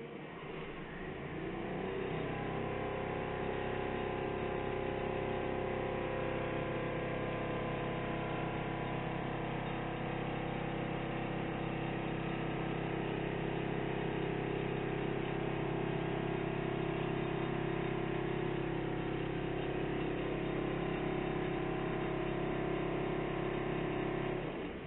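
Diesel engine of an excavator-mounted piling rig throttling up over the first couple of seconds, then running steadily under load with a deep hum. It cuts back suddenly near the end.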